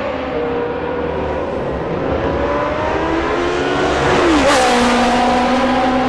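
Historic single-seater racing car engines running at speed, several at once. A car passes close about four and a half seconds in, its pitch dropping sharply as it goes by, and the sound gets louder from then on.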